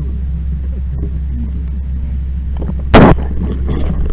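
A steady low mechanical drone with one loud, sharp bang about three seconds in, followed by a few lighter knocks.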